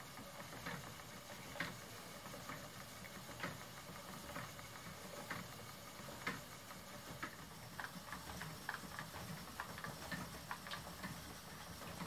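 Faint, regular ticking of a Schacht Matchless spinning wheel turning as it spins yarn, about one tick a second, with extra small clicks in the second half.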